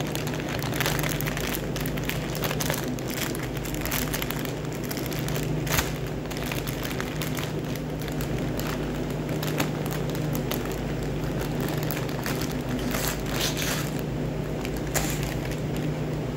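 Clear plastic bag crinkling and crackling in irregular bursts as gloved hands work a bacon-wrapped pork tenderloin into it, over a steady low mechanical hum.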